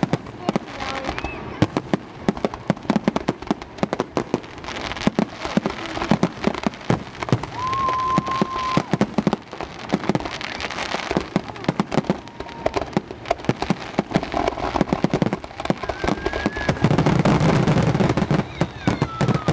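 Fireworks display: a rapid, dense barrage of aerial shell bangs and crackles, building to its loudest and most continuous about 17 seconds in.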